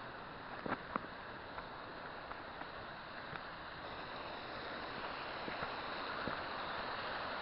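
Waterfall rushing down a steep gully, a steady hiss that grows gradually louder, with a few footstep scuffs in the first second.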